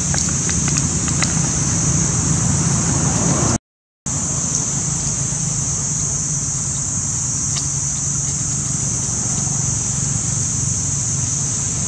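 Steady outdoor background noise, a constant high-pitched hiss over a low rumble, with a few faint crackles of dry leaves under small monkeys' feet. The sound drops out completely for about half a second, about three and a half seconds in.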